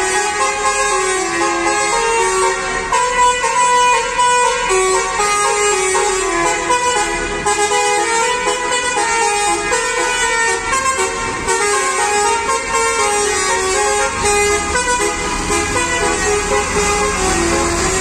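Multi-tone musical "telolet" horn on a coach bus playing a stepping melody, with the diesel engine running underneath and growing louder near the end as the bus pulls past.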